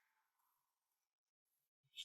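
Near silence, broken by one brief click at the very end.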